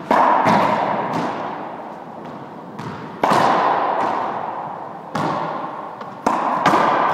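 A squash ball being played: sharp smacks of racquet and ball against the court walls. The loudest come about every three seconds, with lighter knocks between, and each rings out in the hard-walled court's echo.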